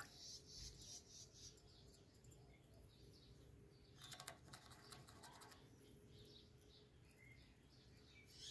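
Near silence, with faint high bird chirps here and there and a brief patter of soft clicks about four seconds in.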